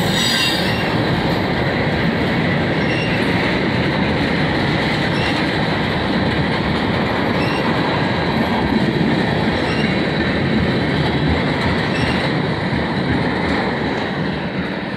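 Freight train tank cars rolling past, with a steady rumble and clatter of wheels on rail and a brief high wheel squeal at the start. It grows quieter near the end as the last car goes by.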